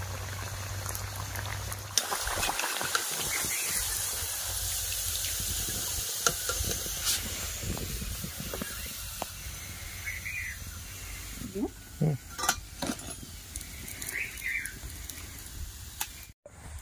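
Deep-frying nokshi pitha sizzling and bubbling in mustard oil in a kadai as hot oil is ladled over it, the hiss growing louder about two seconds in. In the second half the sizzle dies down, with scattered light clicks and knocks.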